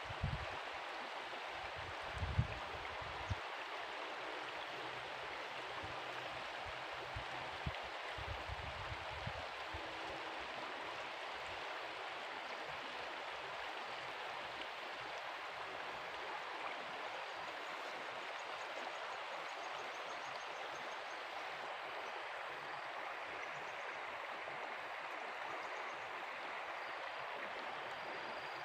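Steady rushing of stream water, with a few low bumps in the first ten seconds.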